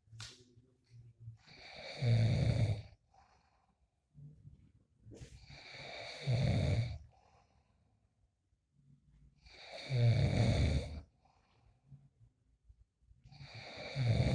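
A man snoring in deep, exhausted sleep. Loud snores come about every four seconds, each swelling out of a quieter breath and lasting about a second.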